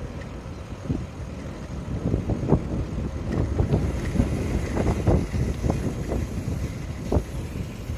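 Riding noise picked up by a bicycle-mounted camera: wind on the microphone and a low rumble, with irregular knocks and rattles throughout.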